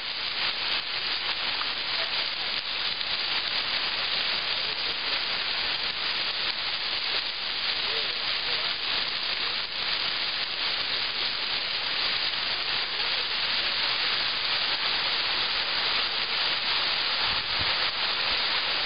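Fountain water splashing: jets falling and spouts pouring into a stone basin, a steady rushing hiss.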